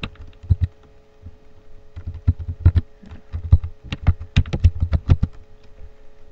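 Computer keyboard being typed on: a few keystrokes at the start, a pause, then a quick run of keystrokes from about two seconds in to about five, as a password is typed in.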